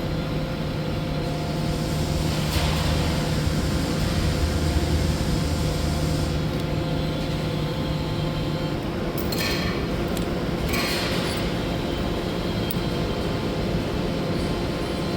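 Steady machine hum of shop equipment, with a few light metallic clinks as small steel parts are handled, about two and a half seconds in and twice around nine to eleven seconds.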